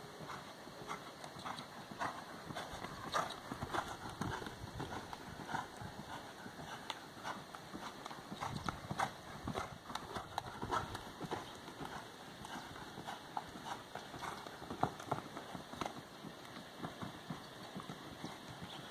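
Hoofbeats of a polo horse cantering on the soft dirt floor of a corral: a run of dull, uneven thuds that come and go in loudness as the horse circles.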